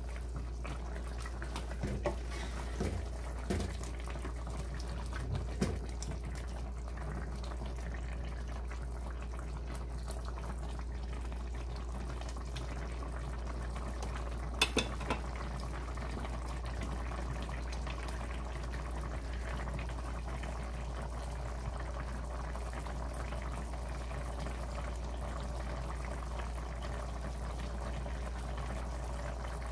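Spicy red-sauced chicken stew bubbling at a steady boil in a stainless steel pot, with a few ladle knocks against the pot in the first several seconds and one sharp knock about halfway through.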